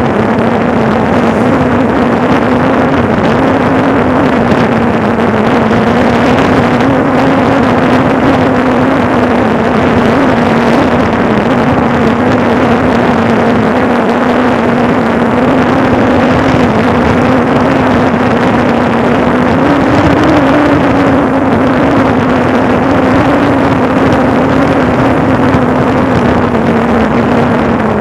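Engine of the moving vehicle running steadily at cruising speed, its pitch rising slightly about two-thirds of the way through, with wind and road noise.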